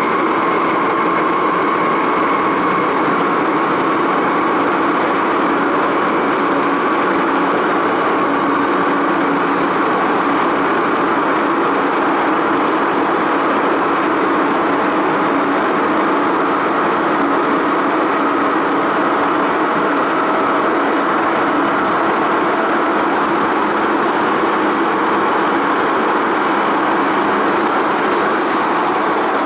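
Inside a Hong Kong MTR M-Train carriage running at speed through a tunnel: a steady, loud rumble of wheels on rail with a faint steady whine. A high hiss rises near the end.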